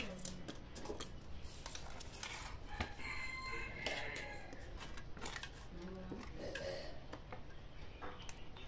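Small clicks and taps of wire leads and a connector being handled on an amplifier circuit board. A drawn-out bird call of about a second sounds in the background around three seconds in.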